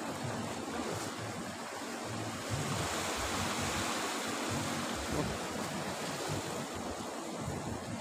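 Sea waves washing against the rocks below a cliff, a steady surf noise that swells louder about two and a half seconds in.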